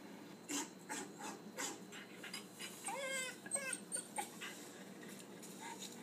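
Recorded dog whimpers and yips played through a laptop speaker: a few short, sharp sounds in the first two seconds, then high, wavering whines about three to four seconds in.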